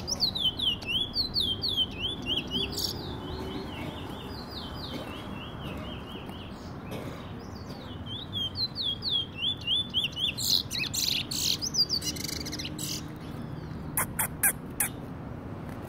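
Caged male bullfinch (chestnut-bellied seed-finch) singing quick runs of short, high, repeated notes. The song comes in two stretches, the first few seconds and again from about eight seconds in, and a few sharp clicks sound near the end.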